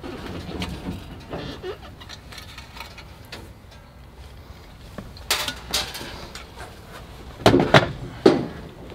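Clatter and knocks of engine parts being handled and lifted off the top of a race engine. There are two sharp knocks about five seconds in and a few louder clunks near the end.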